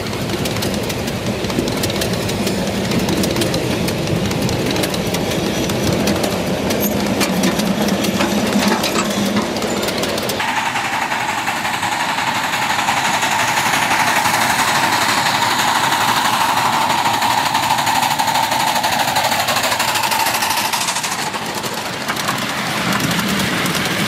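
Ridable-scale railway freight cars rolling past with a rapid, continuous clatter of wheels over the rails. About ten seconds in, the sound changes abruptly to a steady hiss with a held mid-pitched drone as a small coal-fired live-steam locomotive approaches.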